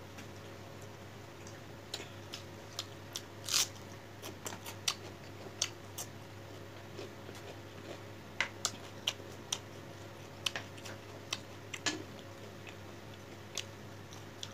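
Close-up eating sounds of rice and fish curry eaten by hand: scattered sharp, wet clicks of chewing and lip smacks, a few every second, over a faint steady hum.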